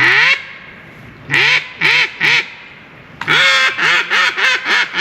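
Mallard duck call blown by a hunter practising: a rising note, then three short quacks, then a long note followed by a quick run of shorter quacks in a descending hail-call cadence. It is being coached toward longer blows.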